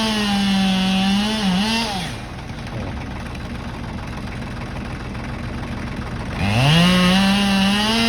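Chainsaw felling a tree at full throttle. Its pitch dips briefly about one and a half seconds in, and the saw falls away a moment later. After a quieter stretch it revs back up about six and a half seconds in and runs at full speed again.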